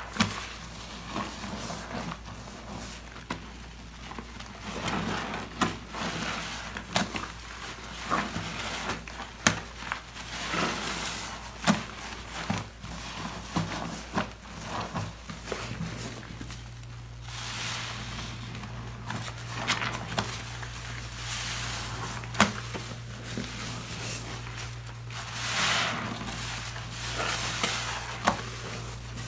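Soap-soaked sponges squeezed by hand in a basin of thick foamy cleaning-product lather: wet squelching and crackling bubbles, with irregular sharp pops and surges as each squeeze presses the suds out.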